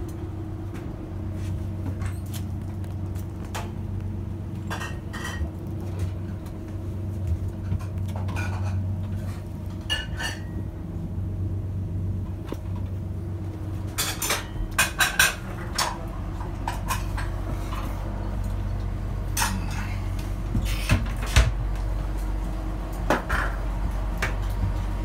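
Dishes and cutlery clinking and cupboard doors knocking in a galley, with a quick run of sharp clinks about halfway through and a few more later, over a steady low machinery hum.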